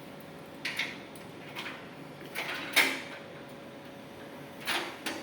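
Metal clunks and knocks from a cash recycling machine's lower safe compartment being closed and locked: about five separate knocks, the loudest near three seconds in.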